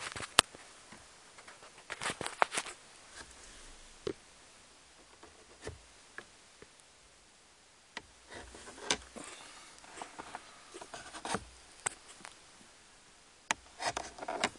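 Irregular light clicks and short rustling handling noises, with quiet stretches between them and a busier cluster near the end.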